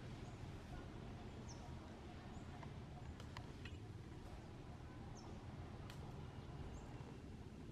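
Quiet outdoor ambience: a steady low rumble with faint, short high chirps every second or two and a few sharp clicks.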